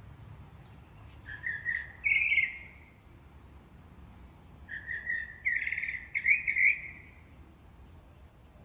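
Yellow finches (canarios) calling: a short run of quick high chirps about a second in, then a longer run from about five seconds in.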